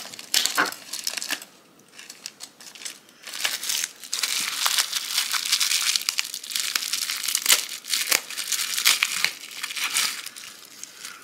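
Packaging crinkling and tearing in the hands as the next gel polish bottle is unwrapped. There are scattered crackles at first, then dense crinkling from about three seconds in until shortly before the end.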